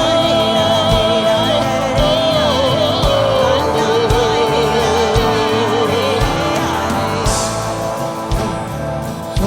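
Worship music: a voice singing long, wavering notes over sustained chords, with a low drum beat about once a second.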